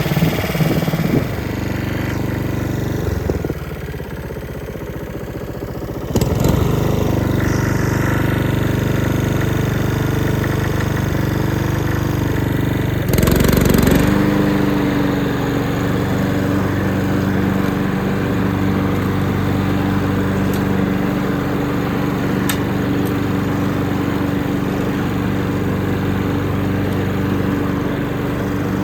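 Honda HRN216 push mower's engine running steadily. It gets louder about six seconds in, and after a short burst of noise around the middle it settles to a steady, slightly higher hum.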